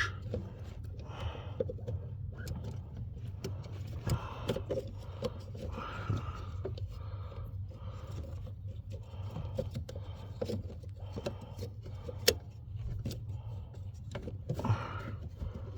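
Scattered clicks and light scrapes of small plastic and metal parts being handled and fitted around a brake light switch under a car's dashboard, over a steady low hum. One sharp click stands out about twelve seconds in.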